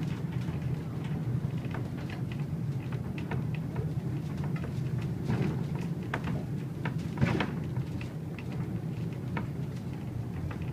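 Riding inside a horse-drawn tram's wooden carriage: a steady low rumble of the wheels running on the rails, with scattered clicks, knocks and creaks from the carriage.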